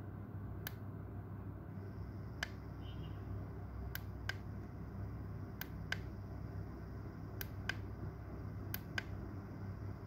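Plastic push-buttons on the base of a star projector night light clicking, mostly in quick pairs of press and release, about five times, over a steady low hum.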